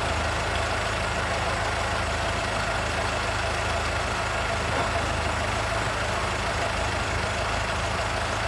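Kato mobile crane's diesel engine running steadily as it lifts a horse trailer on slings.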